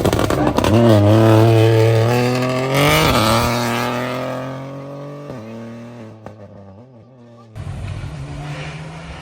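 Rally car engine at full throttle, pitch climbing through a gear, with a gear change about three seconds in, then fading as the car drives away. An abrupt cut near the end brings a quieter engine noise.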